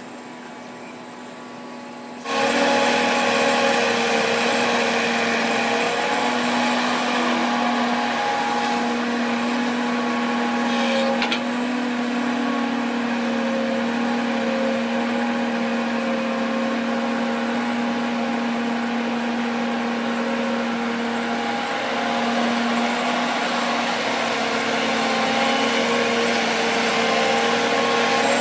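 Diesel engine of heavy earth-moving equipment running steadily at a constant speed, jumping suddenly much louder about two seconds in.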